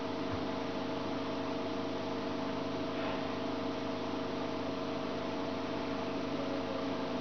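Reef aquarium pumps running: a steady hum with several held tones under an even hiss.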